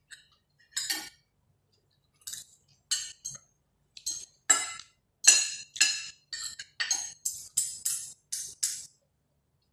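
Spoon and fork clinking against plates during a meal: a string of short, sharp clinks, sparse at first and coming closer together from about halfway.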